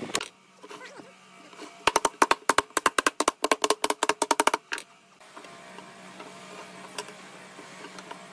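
A rapid run of sharp, ringing taps, about ten a second, lasting nearly three seconds, over a faint steady hum.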